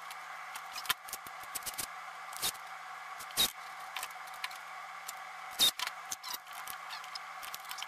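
Workbench handling noises: small metal screws and hand tools clicking and tapping, with several sharper knocks as parts and the plastic board are set down and moved, over a steady background hum.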